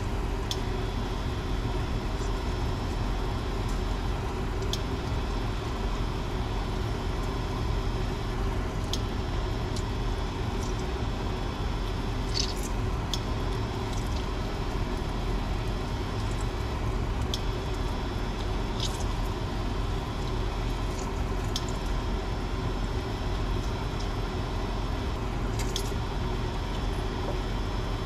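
Scampi sauce simmering in a stainless steel frying pan on an induction hob: a steady sizzle over a constant hum, with small sharp pops every second or two.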